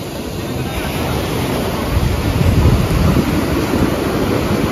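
Sea surf breaking and washing up the beach, with wind buffeting the microphone; the low rush grows louder about two seconds in.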